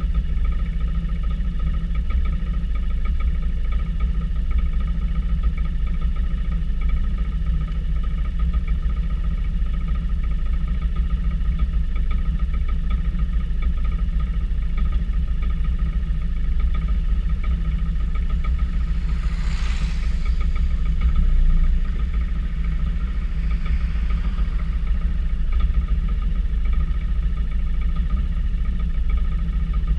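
Vespa GTS 300 ie scooter's single-cylinder four-stroke engine running steadily while riding, under a heavy low rumble. A brief hiss rises and fades about two-thirds of the way through.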